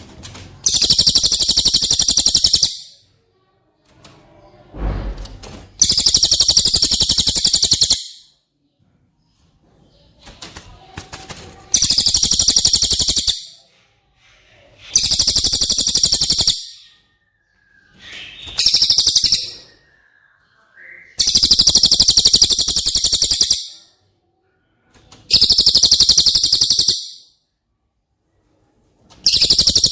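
Cililin bird singing a very high, rapid buzzing trill, about two seconds per phrase, repeated again and again with short pauses between.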